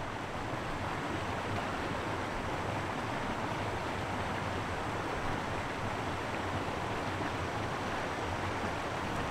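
Treated effluent from a water reclamation plant gushing out of a concrete outfall onto rocks: a steady rushing of water.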